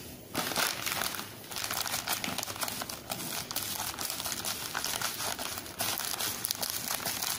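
Plastic courier mailer bag crinkling and crackling as it is handled and cut open with scissors, starting about half a second in.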